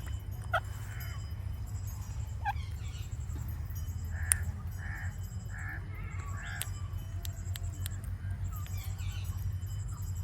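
Indian ringneck parakeet making sharp, scattered clicks, the loudest about four seconds in, with a few short soft chirps between them, over a steady low rumble.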